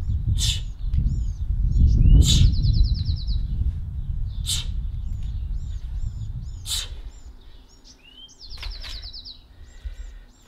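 Small songbirds chirping, with a fast trill twice, over a low rumble that fades about two-thirds of the way through. A short, sharp hiss comes about every two seconds.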